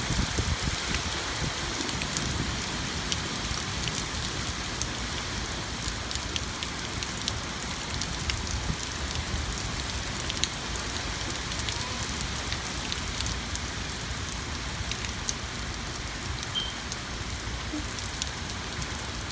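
Steady rain falling, with many small drops pattering and ticking on surfaces.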